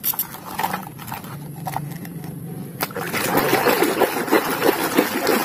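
A few light clicks of plastic toys knocking together in a basket, then from about three seconds in, muddy water splashing and sloshing loudly as a hand scrubs a toy under the surface.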